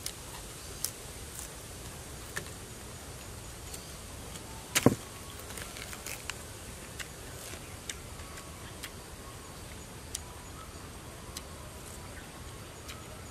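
Knife work and crunchy eating of raw palm heart: sparse crisp clicks and snaps, with one louder knock about five seconds in.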